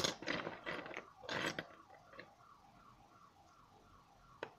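Fingers handling a small watch movement in a metal movement holder: a few rough scraping rustles in the first second and a half, then a single sharp click near the end. A faint warbling siren wails throughout in the background.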